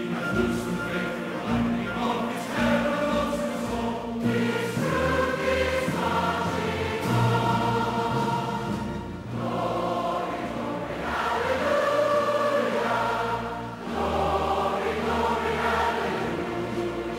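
Soundtrack music: a choir singing long held notes over a low bass line that changes every few seconds.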